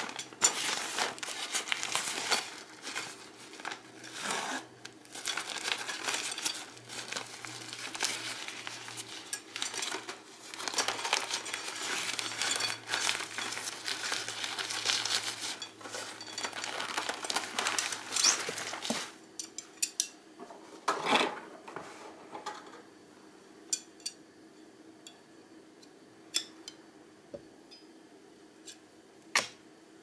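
Uniflame Fire Stand 2 being unpacked: its fabric storage bag rustles and crinkles steadily for about the first two-thirds as it is opened and the folded frame pulled out. Then sparser metal clicks and ticks as the thin stainless-steel rod legs are handled and unfolded.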